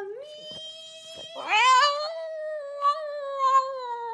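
Pug howling: one long, wavering howl that swells and rises in pitch about one and a half seconds in, then sags slightly toward the end.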